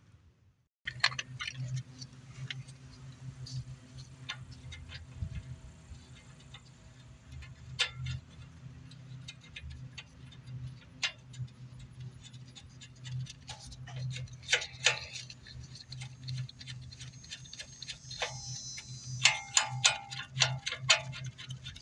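Hand tools working on a car's front suspension: a ratchet wrench clicking in short runs with scattered light metal clicks and knocks, over a steady low hum.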